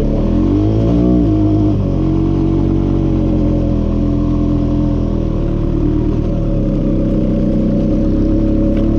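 Four-wheeler (ATV) engine revving up and back down about a second in, then running at a steady pitch.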